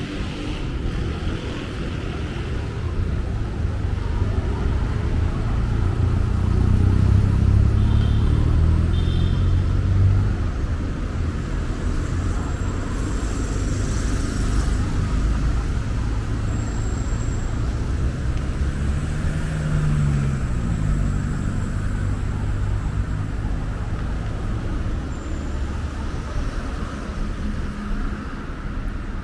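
City street traffic: engines running and vehicles passing. A heavy vehicle's low rumble swells about a quarter of the way in, with a couple of brief high beeps. Around two-thirds of the way through, an engine's pitch rises and falls.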